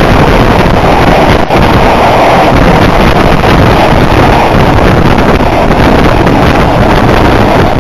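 Loud rushing of two passenger trains crossing at speed, about 110 km/h: the coaches of the train on the next track sweep close past the open door, with the rumble of wheels on rail and heavy wind buffeting the microphone. The other train has passed by near the end, leaving the recording train's own wind and wheel noise.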